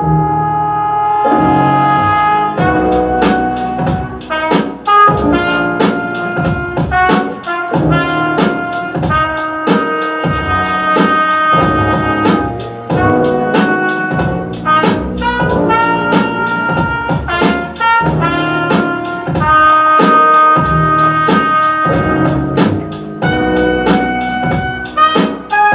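Upbeat music with brass and a drum kit: held notes open it, then a fast, steady drum beat comes in about two and a half seconds in under the brass melody.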